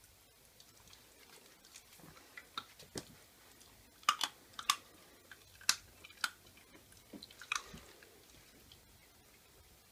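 Whippet puppy chewing a treat: a run of sharp, irregular crunches, loudest about four to six seconds in.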